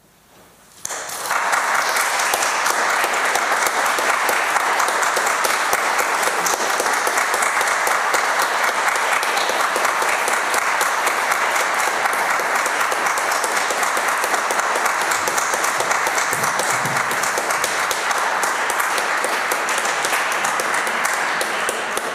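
Audience applauding: dense, steady clapping that starts suddenly about a second in and holds until it begins to fade at the very end.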